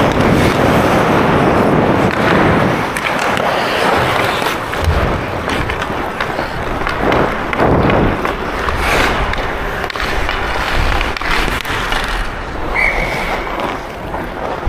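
Ice hockey skate blades carving and scraping across rink ice, heard close up, with a few sharp knocks and a brief high steady tone near the end.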